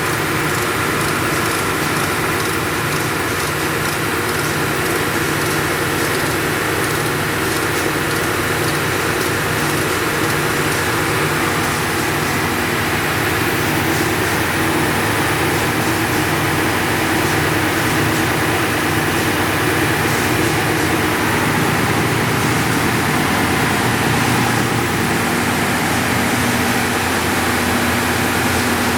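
Ramco 43-inch three-head wide belt sander running under power, its abrasive belts spinning on the heads and the conveyor feeding at its lowest speed: a steady machine drone with several held tones.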